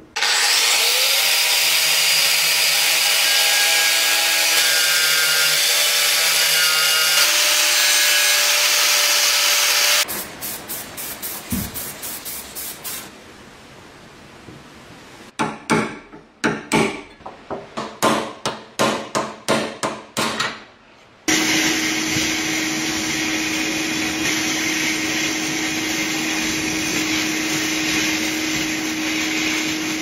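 Workshop tools at work on an old door lock: about ten seconds of steady hissing, then a run of quick rasping hand strokes, then, about two-thirds of the way through, a steady motor starts running with a constant hum.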